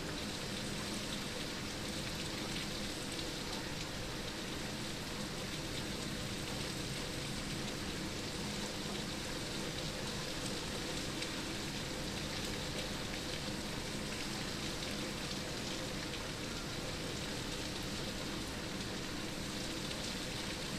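Steady rain heard from indoors, an even patter of drops on surfaces outside with a faint low hum underneath.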